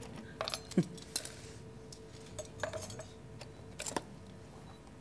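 Scattered clinks and clicks of cutlery, crockery and glassware being handled, with a handful of sharper clinks spread through.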